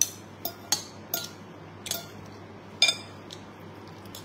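Metal fork and spoon clinking against a ceramic rice bowl as food is scraped and scooped, about six sharp clinks in the first three seconds, the loudest near the three-second mark, then quiet.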